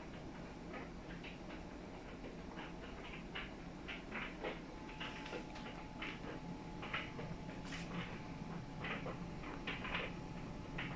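LG RC91V9AV3Q heat-pump clothes dryer running: a steady low hum from its drum motor and compressor under irregular light ticks and taps as the load tumbles, with a faint steady whine joining about five seconds in.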